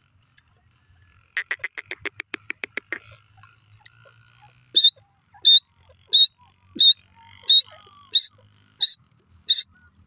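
Grey francolin calling: a fast run of short clicking notes, about nine a second, a second or so in, then from about five seconds eight loud, sharp, high-pitched calls evenly spaced, about one and a half a second.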